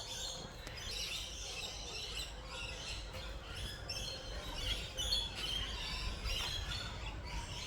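Small birds chirping and calling repeatedly, with many short, high notes.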